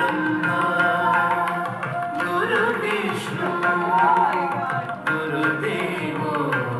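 Carnatic music for a Bharatanatyam dance: a drum keeps the rhythm under a gliding melody.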